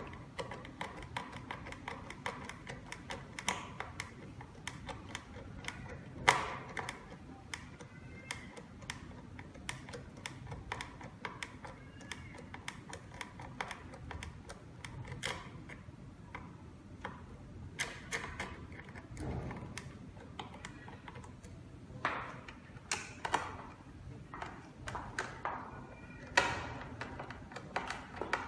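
Hand screwdriver working the small screws of a mortise lock body's metal faceplate, giving scattered irregular metal clicks and ticks. A sharper knock comes about six seconds in, and several louder knocks come near the end.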